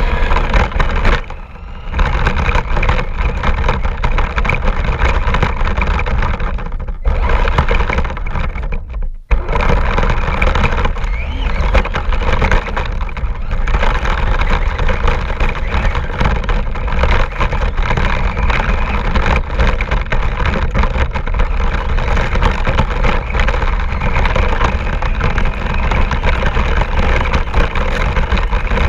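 Radio-controlled car driving, heard from a GoPro mounted on it: a steady motor whine over a heavy rumble and constant rattling from the ground. The sound dips briefly twice, about a second and a half in and again about nine seconds in.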